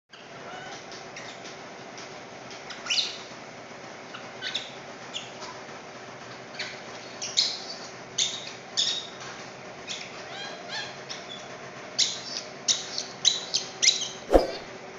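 Baby monkey crying in short, high-pitched squeaky calls, scattered at first and coming faster near the end. A single thump sounds just before the end.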